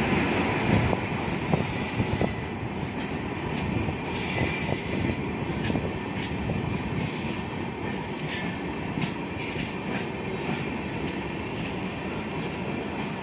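Indian Railways express train's LHB passenger coaches rolling slowly past as it pulls into a station: a steady rumble of wheels on rail. Sharp clicks from the wheels crossing rail joints come through in the first couple of seconds.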